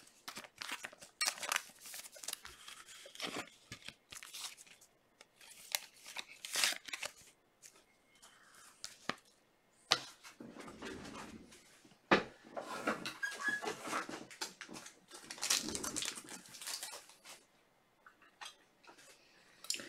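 Trading cards, plastic card sleeves and pack packaging being handled on a desk: scattered light clicks and short rustles, busier with rustling and tearing from about halfway through.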